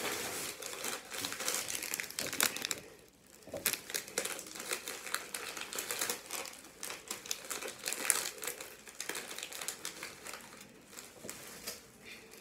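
Snack packaging crinkling in irregular crackles as it is handled and opened, with a brief lull about three seconds in.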